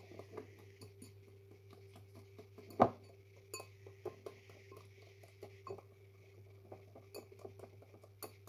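Pancake batter being stirred in a bowl: a run of small irregular scraping clicks of the utensil against the bowl as the flour is mixed in, with one louder knock about three seconds in.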